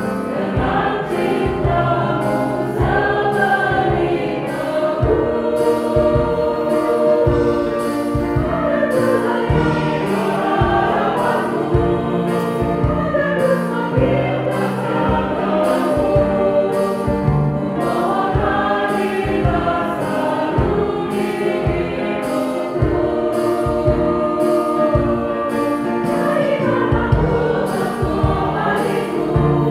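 A church choir singing an Indonesian Catholic communion hymn in several voices, over a steady beat from the accompaniment.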